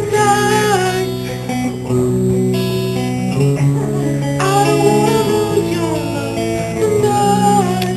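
Guitar music: held chords with a higher melodic line that bends and slides in pitch, in three phrases.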